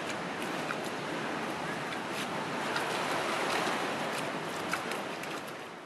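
Steady rush of running water in a fur seal pool enclosure, with scattered faint clicks and small splashes, fading out at the end.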